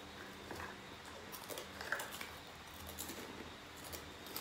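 People chewing and crunching food eaten straight from plates, heard as irregular small clicks and crackles.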